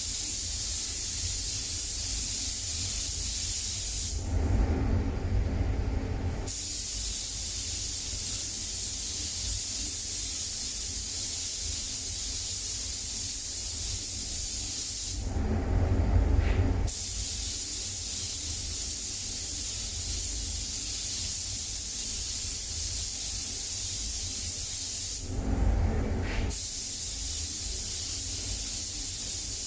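Silver paint being sprayed onto alloy wheels: a steady hiss of paint spray, broken three times for a second or two, when a lower rumbling handling noise takes its place.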